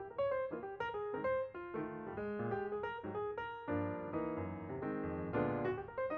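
Instrumental piano music: a melody of quick notes over chords.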